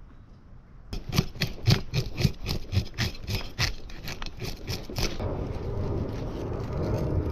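Metal fish scaler scraped in quick strokes down the side of a pink snapper, about four or five strokes a second, flicking off scales. About five seconds in, the strokes give way to a steadier rasp as a knife cuts along the fish's back to take off a fillet.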